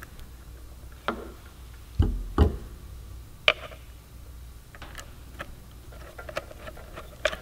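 Scattered light clicks and knocks of small metal hardware being fitted by hand: a lock plate and a small Phillips screw set on a turn-signal bracket, with a screwdriver on the screw near the end. Two sharper knocks come about two seconds in.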